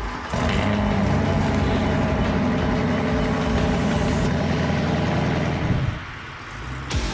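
Jet boat engine running steadily for about five seconds, then dropping away, with a sudden rush of noise just before the end.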